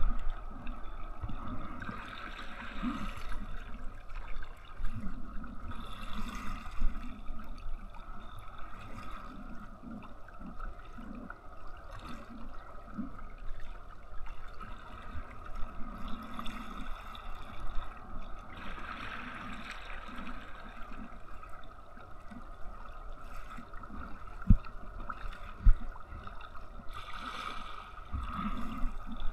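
Water gurgling and splashing against a kayak hull as it moves across the sea, swelling every few seconds. Two sharp knocks come about three-quarters of the way through.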